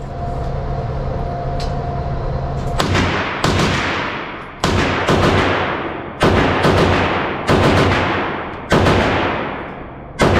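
Gunfire: a string of shots from a rifle or pistol, roughly one a second and often in pairs, each followed by a long echoing decay. A steady background noise comes before the first shot about three seconds in.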